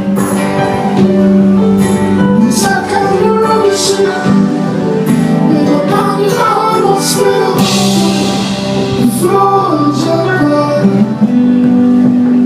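Live band playing loudly: sustained guitar chords over a steady low note, with cymbal strikes and a voice singing without clear words around the middle.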